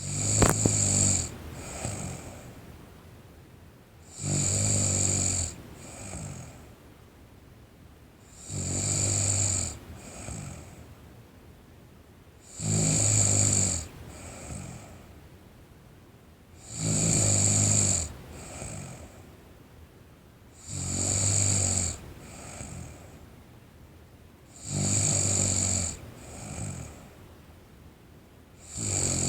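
A teenage girl snoring in her sleep, one low, buzzing snore about every four seconds, eight in all. Each snore lasts about a second and is followed by a shorter, softer breath.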